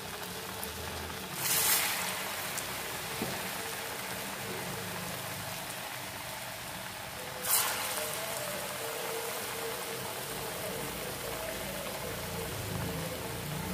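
Horse gram vadas deep-frying in hot oil: a steady sizzling hiss that flares up louder twice, briefly, about a second and a half in and again about seven and a half seconds in.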